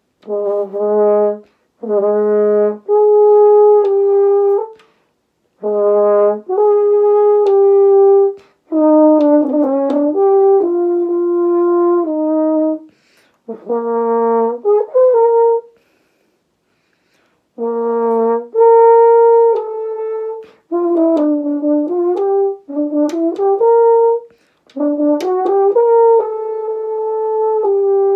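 French horn playing a passage in a series of short phrases of held and stepping notes, broken by brief pauses. The player has embouchure dystonia and is working around it with adapted note starts and articulation.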